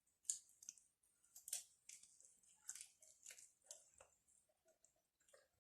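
Faint, irregular wet clicks and smacks of someone chewing saucy chicken wings.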